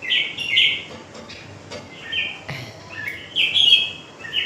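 Small bird chirping in short, harsh calls, about five of them, with a single sharp knock about halfway through.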